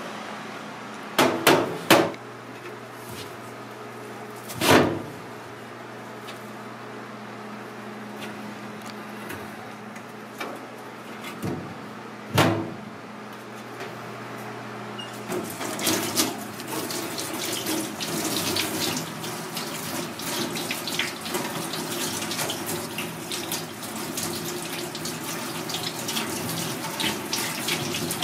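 A metal tray knocking against a stainless steel sink several times, then, from about halfway, a tap running and splashing as a sea snake is rinsed under it by hand.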